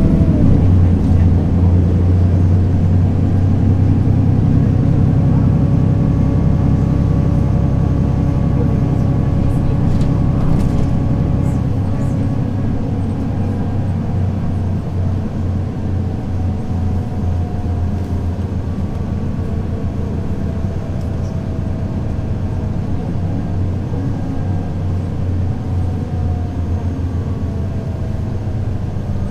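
2003 Mercedes-Benz O 530 Citaro city bus running, its diesel engine note steady and low, with a faint whine that glides slowly down in pitch as the sound gradually eases off.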